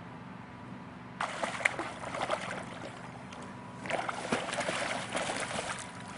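Water splashing and sloshing in two bursts, the first about a second in and the second near the end.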